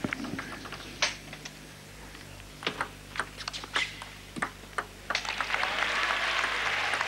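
Table tennis rally: the ball clicks sharply off the rackets and the table, half a dozen strokes at an uneven pace. About five seconds in, the crowd breaks into applause as the point ends.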